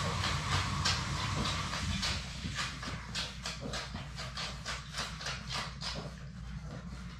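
Labrador Retriever puppies suckling from their standing mother, making rapid wet smacking clicks, about four or five a second, that run steadily through the second half.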